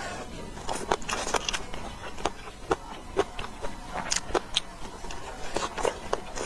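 A person eating: close chewing and smacking with irregular short clicks of utensils, several a second.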